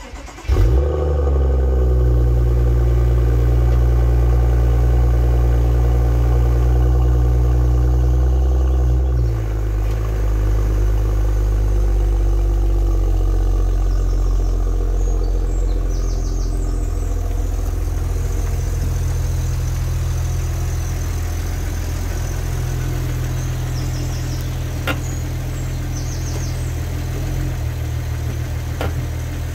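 BMW 640i convertible's turbocharged 3.0-litre straight-six cold-starting: a brief crank and rev flare about half a second in, then a raised cold-start idle that steps down to a lower, steady idle about nine seconds in.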